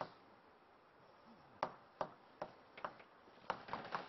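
Chalk writing on a blackboard: sharp chalk taps, starting after a pause of about a second and a half and coming a few times a second, closer together near the end.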